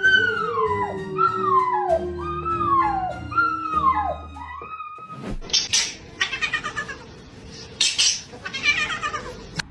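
A cat meowing: about five short meows, each falling in pitch, over a steady held tone. After a break about five seconds in, quieter and noisier cries follow.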